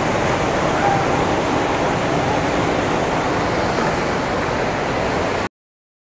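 Waterfall and churning whitewater rushing steadily and loudly, heard close up from the water at the foot of the falls. The sound cuts off abruptly about five and a half seconds in.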